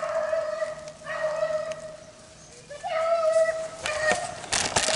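Beagles baying as they run a rabbit's track: long held howling notes, several overlapping, easing off briefly about two seconds in. A few sharp crackles come near the end.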